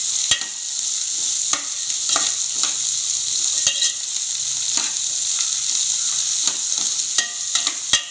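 Chopped onions, shallots and garlic sizzling in hot oil in a metal pot as they are sautéed, with a steady high hiss. A steel spoon stirring them scrapes and clinks against the pot about once a second, irregularly.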